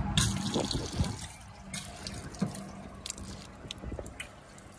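Water running from a drinking-water cooler's tap and splashing over hands into its stainless-steel basin, strongest in the first second, then thinning to scattered drips and small knocks.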